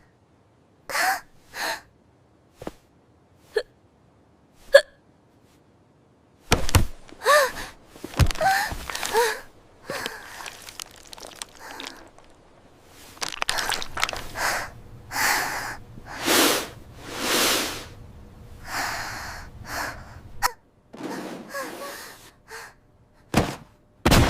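A person hiccuping over and over: short, sharp voiced hics at uneven gaps. Through the middle come several longer, breathy gasps.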